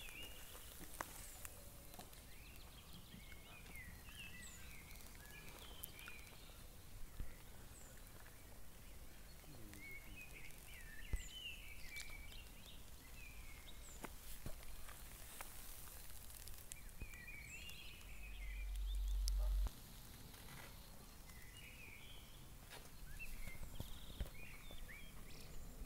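Faint outdoor ambience with birds singing in short twittering phrases every few seconds and scattered light clicks. A little past two-thirds through, a low rumble swells for about a second and a half, then cuts off.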